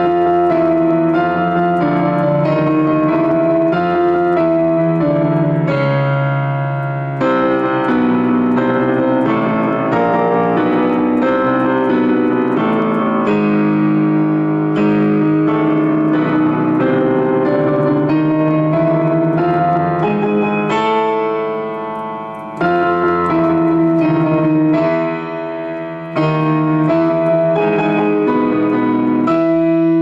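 Digital piano played in double octaves, both hands striking the same notes in octaves in running triplets, in a loud, continuous passage with brief breaks between phrases.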